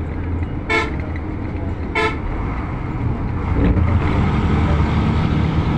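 Steady low rumble of a vehicle driving along, with two short vehicle-horn toots, the first under a second in and the second about a second later. The rumble grows louder a little past halfway.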